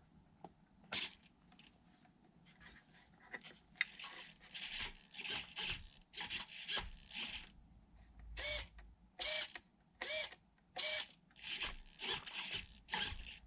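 Small hobby servos whirring in short bursts as they drive an action figure's arms and head. In the second half the bursts come evenly, a little more than one a second.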